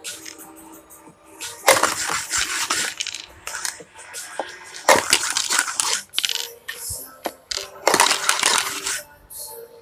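Dice rattling and clattering in a clear plastic cup moved quickly over a tabletop, in three bursts of about a second each.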